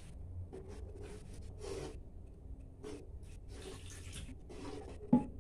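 A spatula scraping and stirring in a wok in short irregular strokes, with water poured from a plastic jug into the wok near the end, and one sharp knock shortly before it ends.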